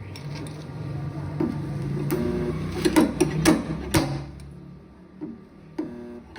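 Several sharp knocks and clanks with a short ringing tone, over a steady low hum that swells and then fades about four seconds in; most likely tools knocking on metal during car body dent repair.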